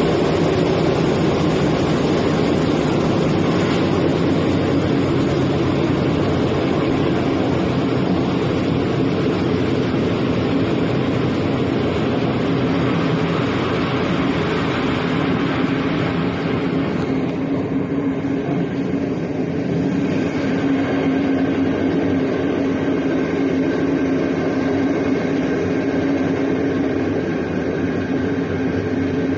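Express train running along the track, heard from inside a passenger coach: a steady rumble and rush of wheels on rail. About two-thirds of the way through, the hiss thins out and the low rumble carries on.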